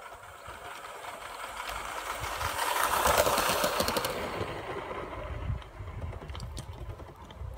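Miniature-railway model of an LNER A4 locomotive, 60024 'Kingfisher', running past on the track. Its rumble and the clatter of its wheels on the rails swell to a peak about three seconds in, then fade as it moves away.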